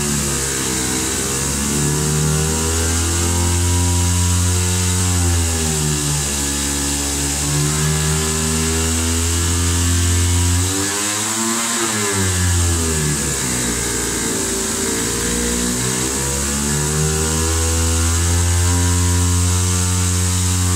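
AOKE flatbed CNC digital cutter running while it cuts gasket sheet: a steady low hum under a whine whose pitch repeatedly rises and falls as the cutting head moves, with a high hiss. About halfway through, the pitch swoops down and climbs back up.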